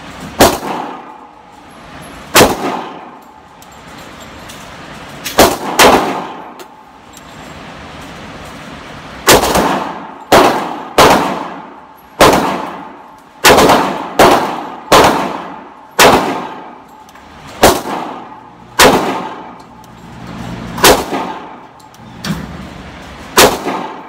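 Handgun fired at a steady, unhurried pace, about sixteen single shots spaced roughly a second or more apart, each with a long echoing tail.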